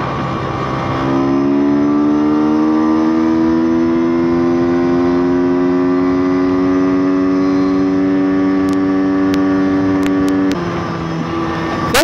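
YX 160cc single-cylinder four-stroke pit bike engine accelerating flat out on a top-speed run. About a second in the revs jump up, then the engine note climbs slowly and steadily for about nine seconds before falling suddenly near the end.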